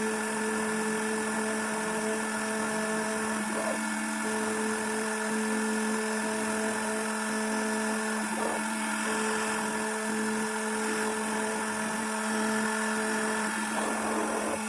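CNC router spindle running steadily with a constant whine while machining a PCB. A second, higher tone drops out briefly about every four to five seconds as the machine's motion changes.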